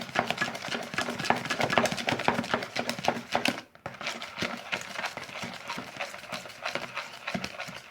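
Glue, shaving-cream and borax slime being mixed in a bowl as it thickens: a dense run of wet, sticky clicks and squelches. It is louder for the first three seconds or so, breaks off briefly about halfway through, then goes on more quietly.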